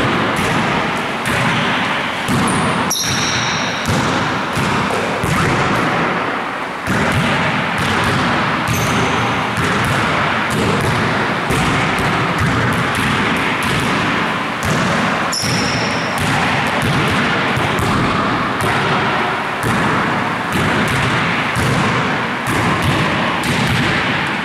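Basketballs thumping and bouncing off hands and the floor in quick, repeated strokes during passing drills, with a few short high squeaks.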